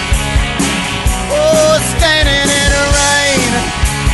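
Live rock band playing an instrumental break, with drums keeping a steady beat under a lead line of long notes that bend in pitch.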